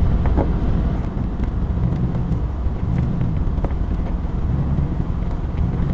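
Camper van driving on a gravel road, heard from inside the cab: a steady low rumble of engine and tyres, with scattered small clicks.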